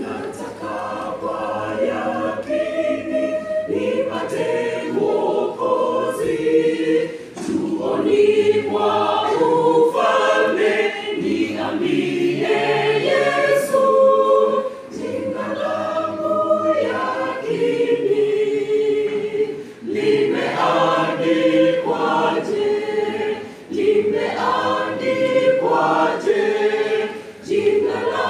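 Mixed choir of men's and women's voices singing a hymn in parts, unaccompanied, in Swahili. It sings in phrases of a few seconds, with short dips for breath between them.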